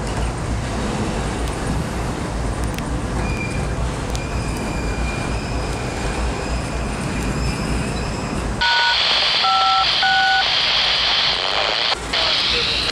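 Steady outdoor background noise with a low rumble, then about two-thirds of the way in a scanner radio opens with a burst of hiss and three short touch-tone (DTMF) beeps, each a pair of tones sounding together.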